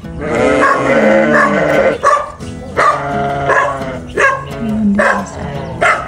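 A dog barking repeatedly in a steady run, a little more than one bark a second, over background music.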